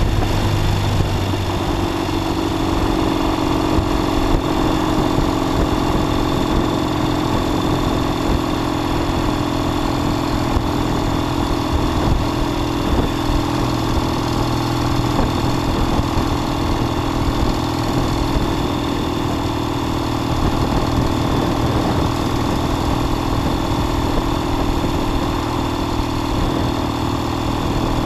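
1969 Triumph T120 Bonneville's 650 cc parallel-twin engine running under way. The engine note shifts in the first second or two, then holds steady.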